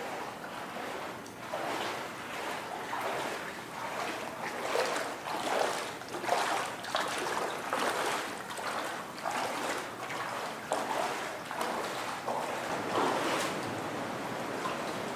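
Water rushing and splashing in uneven surges, a steady hiss that swells and eases every second or so.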